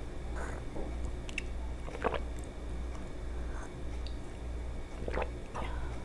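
A person taking small sips of hot coffee from a shot glass: a few short slurps and swallows, the loudest about two seconds in, over a low steady hum.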